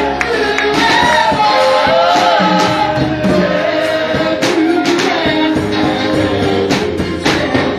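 Live worship music: singing over a band with guitar and percussion, including a tambourine.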